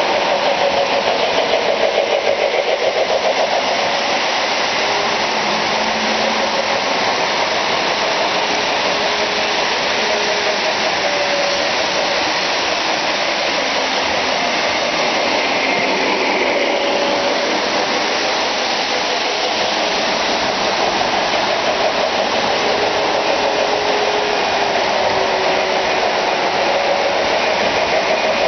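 Many O-gauge model trains running at once: a steady whirring rush of electric motors and metal wheels rolling over three-rail track, with a few faint short tones now and then.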